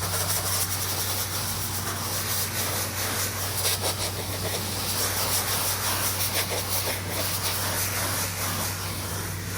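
Pressure washer engine running steadily, with the hiss of high-pressure water spraying from the wand.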